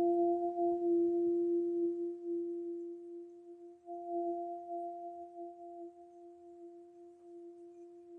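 A single steady tone held on one pitch by a human voice, hummed or sung very evenly, with a fainter overtone an octave above. It is strongest at first, eases off, and swells again about four seconds in.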